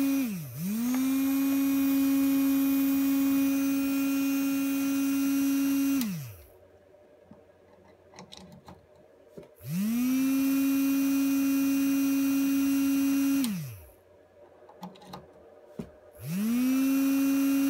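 Small DC motor from an electric razor, wired straight to a 4-volt DC wall adapter, whining at a steady high pitch as it spins fast on about four times its normal voltage. It dips and spins back up about half a second in, winds down to a stop around six seconds, and during the pause there are only faint clicks. It then starts again with a rising whine, winds down once more, and spins up a third time near the end.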